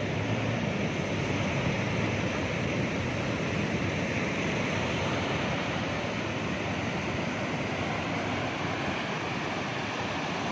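Big ocean surf breaking in a steady wash of noise, with wind.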